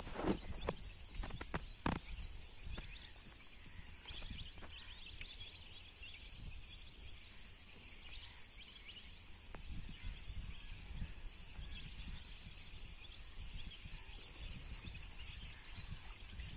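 Faint outdoor ambience: a low rumble with distant birds chirping, and a few sharp knocks in the first two seconds.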